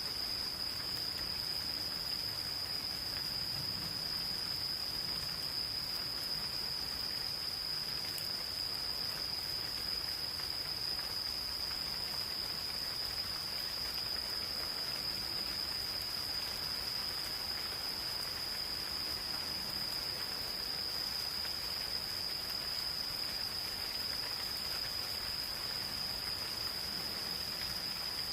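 Insects calling in one continuous, unbroken high-pitched trill over the even hiss of gentle rain falling.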